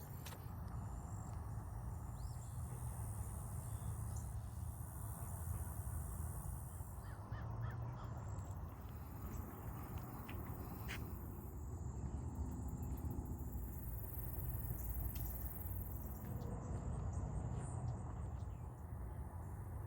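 Outdoor ambience: a steady low rumble with a few short bird calls over it.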